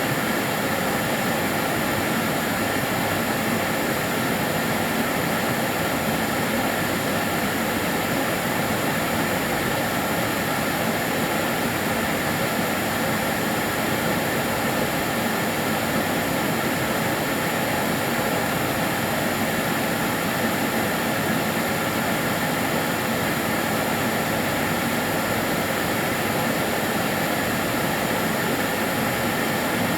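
Karcher DS 6 Premium water-filter vacuum cleaner running steadily: an even, unchanging motor noise with a faint steady whine on top.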